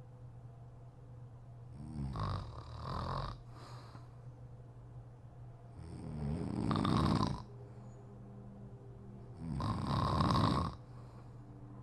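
A woman snoring in her sleep: three loud snores about four seconds apart, the first in two parts, over a steady low hum.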